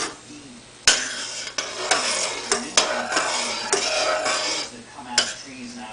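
Metal spoon stirring in a stainless steel saucepan, scraping the bottom and clinking against the sides. A sharp knock about a second in, then about four seconds of continuous scraping with clinks, and one more clink near the end.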